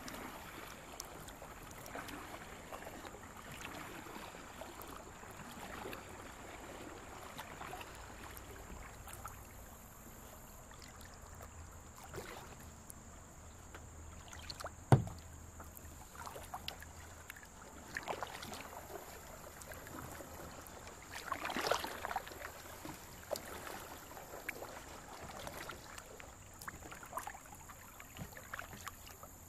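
Kayak paddle strokes dipping and splashing in the creek water every second or two, with one sharp knock about halfway through and a louder splash a few seconds later.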